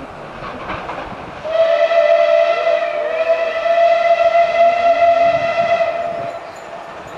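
A train sounds one long, steady warning note for about four and a half seconds. The note starts about a second and a half in and stops near the end. It acknowledges a person in a hi-vis vest standing by the track.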